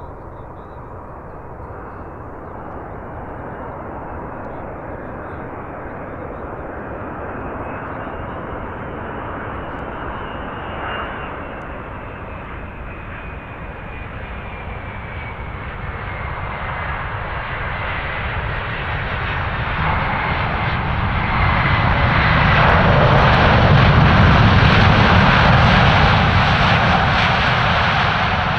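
Airbus A380-861's four Engine Alliance GP7200 turbofans on a close landing pass: a steady jet roar with a high whine that slides down in pitch as the plane goes by. It grows louder over about twenty seconds, with a heavy low rumble that is loudest a few seconds before the end.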